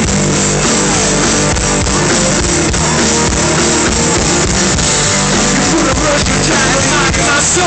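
Live rock music: a male singer singing over guitar, loud and steady, recorded from among the audience.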